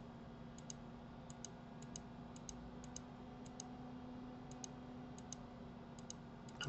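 Faint computer mouse clicks, irregular and often in quick pairs, over a low steady hum.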